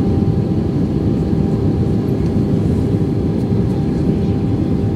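Steady cabin drone inside an Airbus A320 in flight: engine and airflow noise, low and even, with a faint steady hum running through it.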